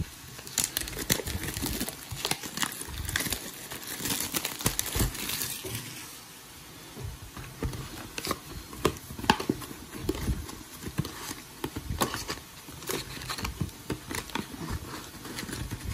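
Plastic shrink wrap crinkling and tearing as it is peeled off a cardboard booster box: dense crackling for the first several seconds, then scattered crinkles and taps as the box is handled and its lid lifted off near the end.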